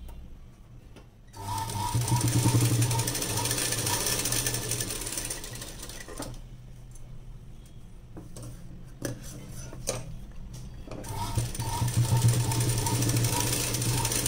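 Sewing machine stitching fabric: it runs steadily for about five seconds, stops for a few seconds with a few clicks as the cloth is handled, then runs again near the end.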